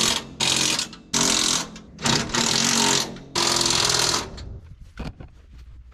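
Impact wrench run in about five short bursts, running nuts down onto the bolts of a baler's floor-chain guides; the last burst stops about four seconds in, leaving a few faint clicks.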